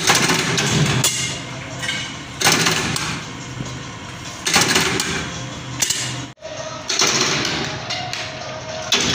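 Mechanical power press stamping flip-flop soles out of a foam sheet with a steel cutting die: a heavy thump with each stroke, roughly every two seconds, over the steady running of the press. The sound drops out abruptly for an instant about six seconds in.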